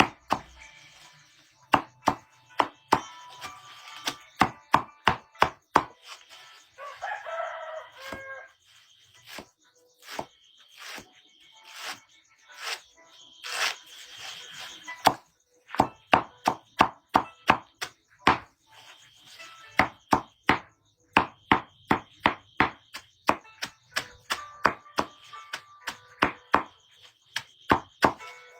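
Chopping with a blade: sharp knocks struck again and again in quick runs, about two to three a second, broken by short pauses.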